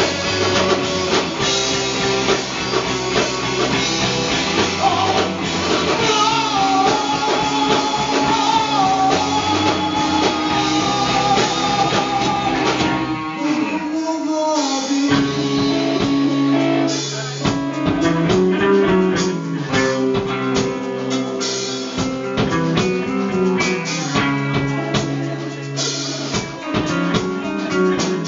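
Live rock band playing, with electric guitars and a drum kit. About halfway through, the full band drops away to one held, wavering guitar note, then a repeating guitar riff with drums comes back in.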